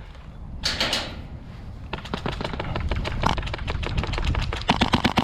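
Airsoft electric guns firing on full-auto: a rapid stream of sharp clicks that starts about two seconds in and gets louder near the end, after a short burst of noise about a second in.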